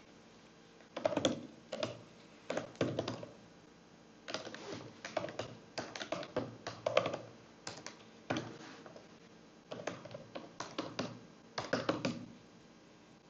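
Typing on a computer keyboard: short runs of quick keystrokes broken by pauses of up to about a second.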